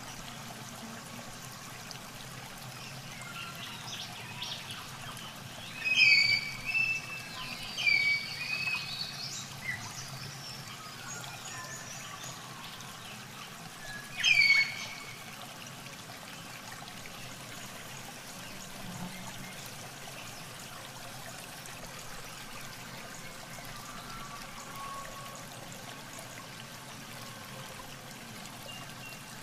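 Steady trickling, running water, with a bird breaking in with several short whistled calls about six to nine seconds in and one more around fourteen seconds; the bird calls are the loudest sounds.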